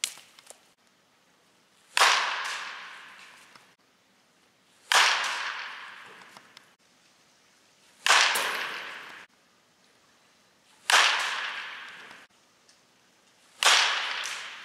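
Baseball bat hitting pitched balls in batting practice: five sharp cracks, about one every three seconds, each followed by a ringing echo that dies away over a second or so, after a short sharp knock right at the start.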